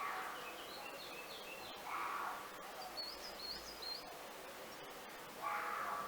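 Birds calling over a steady background hiss: three short harsh calls, near the start, about two seconds in and near the end, with quick runs of high chirping notes between them.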